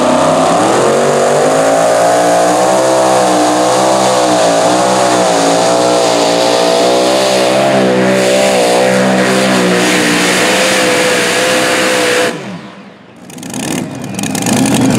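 Mini Rod pulling tractor's engine at full throttle hauling the weight sled, its pitch wavering up and down as it goes down the track, then holding one high steady pitch. About twelve seconds in the engine cuts off suddenly, and a lower engine sound picks up again near the end.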